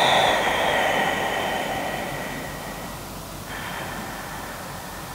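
Slow, deep breaths from a woman holding a yoga stretch. One long breath starts at once and fades over about three seconds, and a second, softer one begins about three and a half seconds in.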